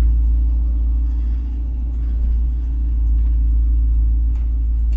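1967 Chevrolet Camaro's engine, newly fitted with ACES Killshot throttle-body fuel injection, running at low revs as the car backs up. It is a steady low rumble heard from inside the cabin.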